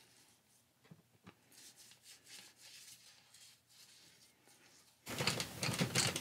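Faint scrubbing of a stiff brush on a metal turret casting in a tub of soapy cleaning solution, with a couple of light clicks about a second in. About five seconds in, a loud clatter begins: a steel adjustable wrench clanks and rattles against the metal turret in the liquid.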